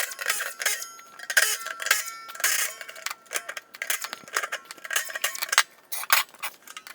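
Steel plow parts and tools clanking against each other during disassembly: a rapid, irregular series of metal knocks and clinks, many leaving a short bell-like ring.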